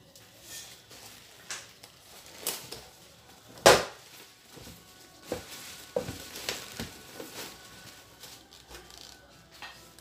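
Fresh kontomire (cocoyam) leaves being handled and their stalks stripped off in a stainless steel sink: rustling with scattered sharp cracks, the loudest a little under four seconds in.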